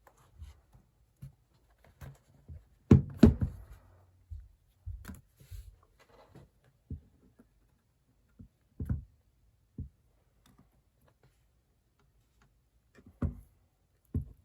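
Irregular taps, clicks and thuds of a laptop and its packaging being handled and set down on a desk, with two loud thuds about three seconds in.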